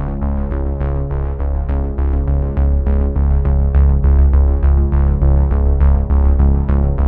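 Electronic background music: sustained synthesizer chords over heavy bass and a steady beat of about four strokes a second.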